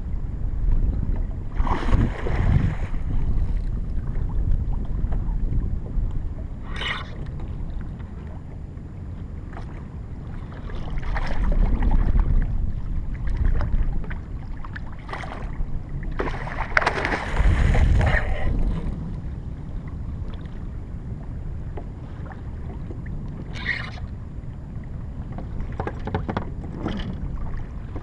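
Wind buffeting the microphone over water moving against a plastic fishing kayak, with several short, louder splashing bursts, the loudest about two seconds in and around seventeen to eighteen seconds in.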